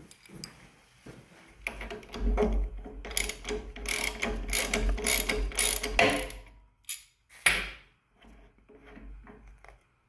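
Ratchet wrench clicking rapidly as it unscrews the lower banjo bolt on a pressure washer pump's brass manifold, then two sharp clicks a few seconds later.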